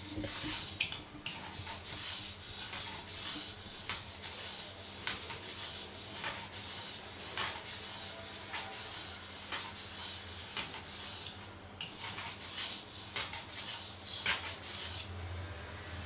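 Victorinox Swiss Army knife blade being sharpened on a 1000-grit whetstone: a steady run of scraping strokes of steel across the stone, about one or two a second. The strokes stop near the end.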